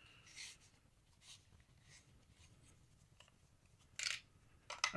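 Faint rustling and scraping of a small packaging box being slid open and a velvet pouch lifted out, with a brief louder rustle about four seconds in.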